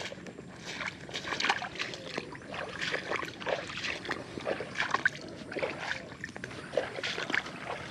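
A person wading through flood water, the legs sloshing and splashing irregularly with each stride.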